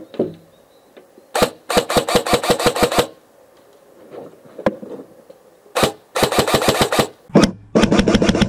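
Airsoft electric rifle firing on full auto: three bursts of rapid mechanical clacks, each about a second long, with a single shot or two between them.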